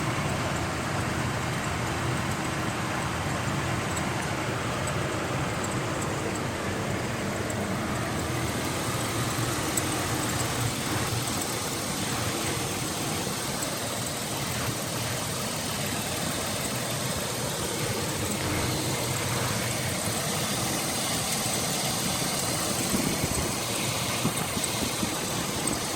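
Truck engine idling steadily, a few minutes after being started.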